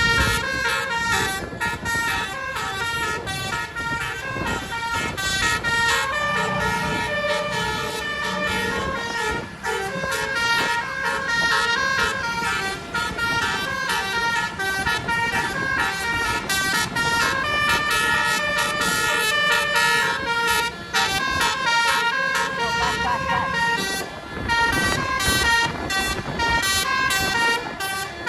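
A bus's basuri telolet horn playing a rapid melody of changing air-horn notes, the tune running almost without a break with a few short pauses, over a low rumble.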